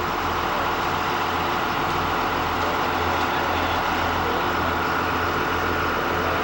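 A vehicle engine running steadily: a constant low hum under an even hiss.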